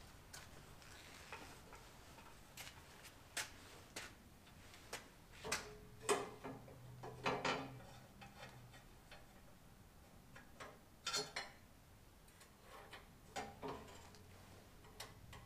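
Irregular light clicks and clinks of metal parts being handled and fitted on a small metal-cutting bandsaw, a few of them with a brief metallic ring.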